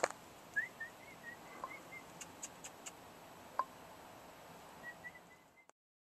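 Faint, thin high chirps from a bird in two short runs, with a few scattered sharp clicks and ticks. The sound cuts off abruptly near the end.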